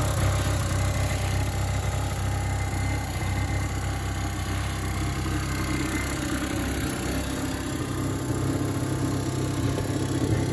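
Peugeot Elystar 50 TSDI's air-cooled two-stroke direct-injection engine idling steadily, just after a cold start following a month of standing.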